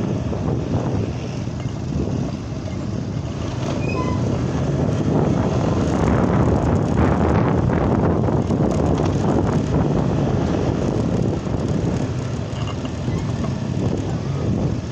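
Small motorcycle engines running steadily while riding along a street, with road and wind noise.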